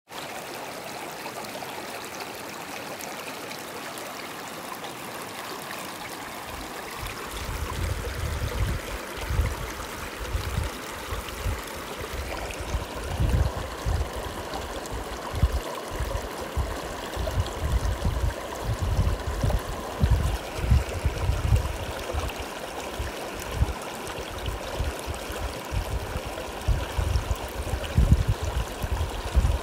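A mountain river rushing steadily over rocks. Irregular low rumbling comes and goes from about seven seconds in.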